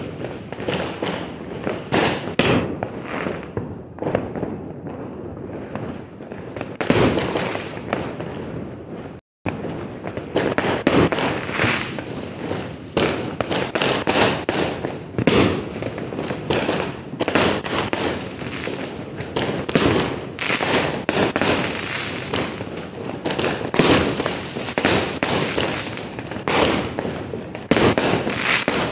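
Fireworks going off in quick, irregular succession: many overlapping bangs and crackles, with a brief break about a third of the way through.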